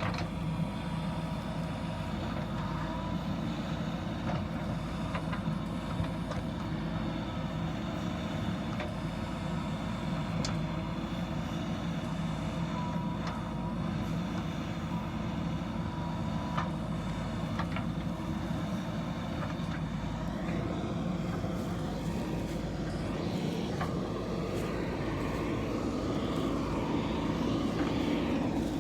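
JCB backhoe loader's diesel engine running steadily, with a few sharp clicks. About two-thirds of the way through the sound grows fuller and slightly louder as the machine works harder.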